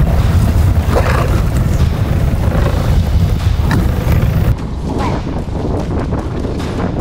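Wind buffeting the microphone on a boat at sea, a heavy, steady low rumble. It drops and thins out abruptly about four and a half seconds in, leaving a lighter rumble with a few faint ticks.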